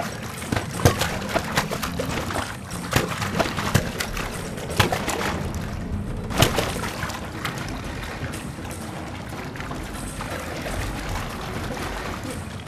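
Underwater sound effects of divers striking a wooden boat hull: irregular sharp knocks through the first half, the last loud one about six and a half seconds in, over a bubbling, watery wash and a music score that carries on after the knocks stop.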